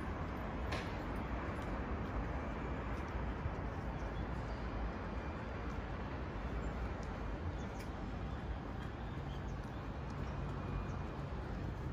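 Steady outdoor city background noise: a low rumble under a hiss, with a few faint scattered clicks.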